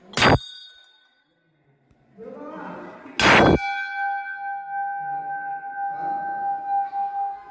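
Brass temple bell struck twice, about three seconds apart: the first clang fades within a second, the second keeps ringing on a steady two-tone hum.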